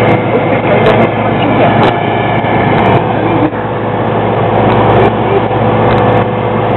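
Ferry's engine running steadily with a constant hum, with wind blowing on the microphone and a few brief crackles of wind buffeting.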